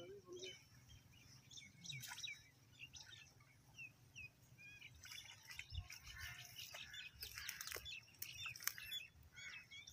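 Small birds chirping in short, scattered calls, with a few faint sharp clicks in the second half.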